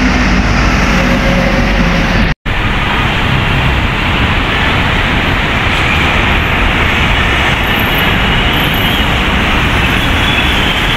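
Loud, steady road-traffic noise: the engines and tyres of passing trucks, a bus and motorcycles. A brief total dropout about two seconds in marks a cut in the recording.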